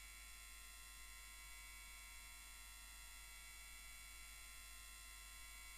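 Near silence: only a faint steady electronic hum and hiss, with no sound of the passing train.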